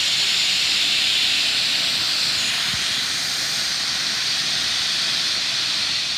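Baldwin-built steam locomotive 5917 venting steam from its open cylinder drain cocks: a loud, steady hiss.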